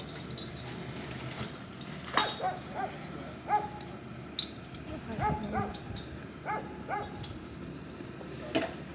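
A dog yipping repeatedly in short, sharp calls, often two in quick succession, with a few knocks among them.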